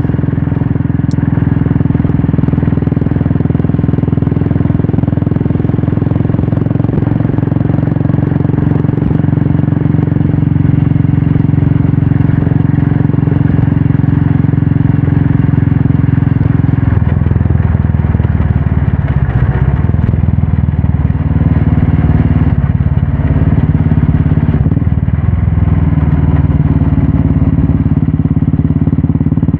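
Royal Enfield Classic 350 single-cylinder engine running through a Red Rooster aftermarket exhaust. The note holds steady at first, then shifts in pitch several times from a little past halfway.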